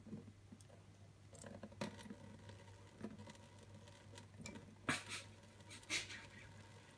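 Faint scattered taps and light clicks of a cat moving on a stainless-steel kitchen sink and its mixer tap, with a thin trickle of water running. Two sharper clicks come near the end, over a low steady hum.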